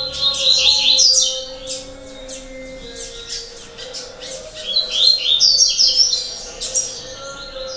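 Coleiros (double-collared seedeaters) chirping in rapid high twitters, in two loud bursts: one at the start and one about four and a half seconds in, with fainter chirps between them. A faint steady hum runs underneath.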